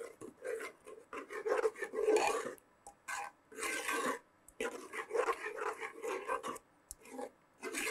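Metal ladle stirring urad dal milk in a metal pot, scraping against the bottom and sides in repeated, irregular strokes.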